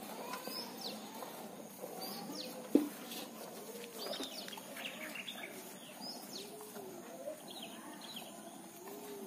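Birds chirping and calling throughout, over faint squirts of milk into a steel pail from hand-milking a cow. One sharp knock sounds a little under three seconds in.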